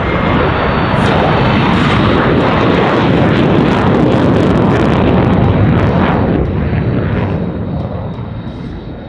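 F-16 fighter jet engine roaring loudly as the jet passes, with a crackling edge; the roar holds steady, then fades away from about six seconds in.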